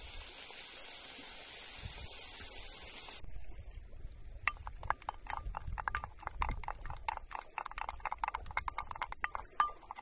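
Burger patties sizzling on a grill over a fire, a steady hiss that cuts off about three seconds in. Then a wooden spoon stirring sauce in a ceramic bowl, rapid clicking and scraping several times a second.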